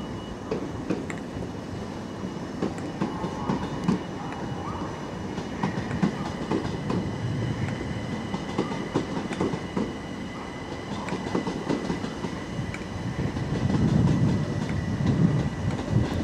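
Electric multiple-unit trains, a Class 319 and a Southern Class 377 Electrostar, running slowly over rail joints and points with repeated wheel clicks over a low rumble. A thin steady high whine sets in about five seconds in, and the rumble grows louder near the end.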